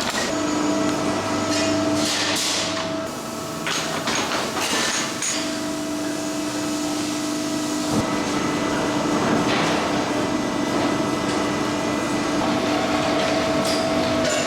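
Large press brake running: a steady machine hum with irregular hissing and clanking, and a single sharp knock about eight seconds in.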